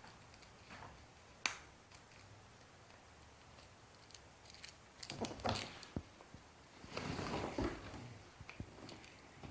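Ferrets moving about and playing: scattered sharp clicks and taps, with bursts of rustling about five seconds in and again around seven seconds.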